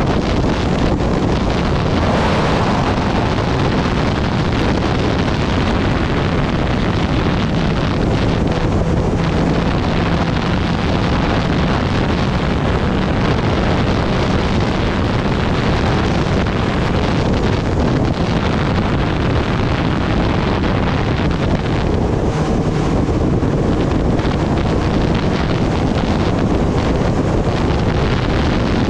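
Steady wind rushing over the microphone at riding speed on a Kawasaki Ninja ZX-10R, with the bike's inline-four engine running faintly underneath.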